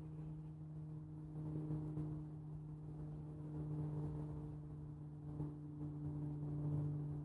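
A steady low hum with a couple of higher overtones, unchanging throughout, over an uneven low rumble of wind on the microphone.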